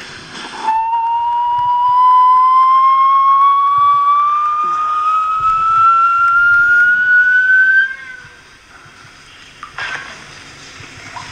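A man's long whistle held as one note that slowly and steadily rises in pitch for about seven seconds, then stops; it is an attempt to pick a lock by whistling into it.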